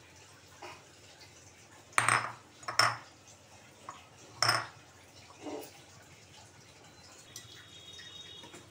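Metal kitchen utensils clinking: three sharp, ringing clinks about two, three and four and a half seconds in, with a couple of fainter taps between.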